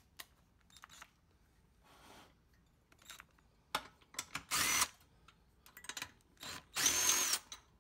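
A cordless impact driver running the bolts on a small engine's cylinder head in several short bursts, the two loudest about two seconds apart, each with a high motor whine. A few light clicks of metal come before.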